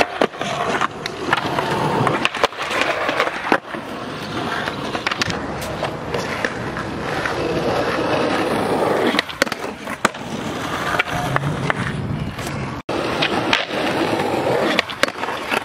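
Skateboard wheels rolling over rough concrete with a steady grinding rumble, broken by several sharp clacks of the board's tail popping and wheels landing.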